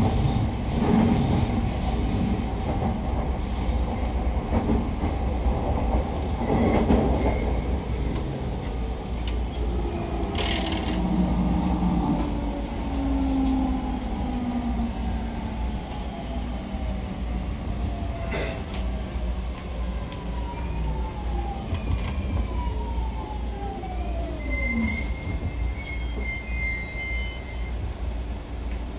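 Interior running noise of a JR East 209 series electric train's motor car: a steady rumble of wheels on rail with some wheel squeal. From about halfway through, the motor whine falls steadily in pitch as the train slows for a station.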